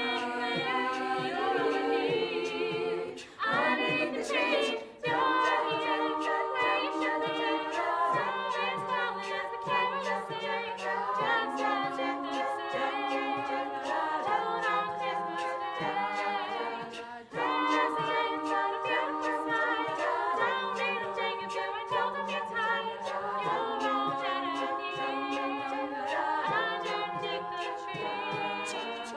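A cappella vocal group singing an upbeat song in close harmony, with a voice carrying a rhythmic bass line beneath the chords.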